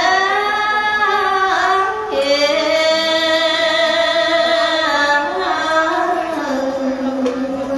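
A woman singing a Khmer Buddhist devotional chant (Dharma Sangvek) into a microphone, in long, slowly bending held notes with vibrato and only short breaks between phrases.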